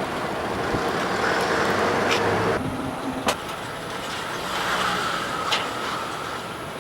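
Cars moving, with a steady run of engine and tyre noise and a few short sharp knocks.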